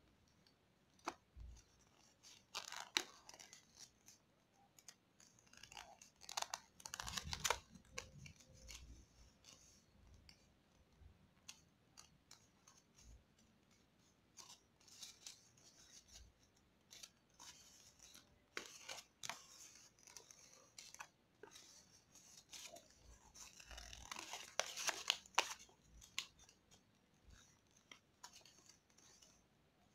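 Faint crinkling and rustling of a sheet of white origami paper being folded and creased by hand. It comes in irregular crackly bursts, louder around three, seven and twenty-five seconds in.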